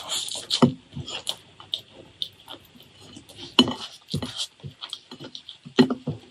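Close-miked chewing and wet mouth smacks on a mouthful of curry rice, with fingers squishing and pressing rice against a plate. The clicks and smacks come irregularly, a few louder than the rest.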